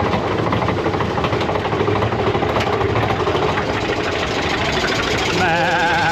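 Mine-train roller coaster running along its track: a steady rumble and rattle of the train mixed with wind. Near the end there is a short warbling high-pitched sound.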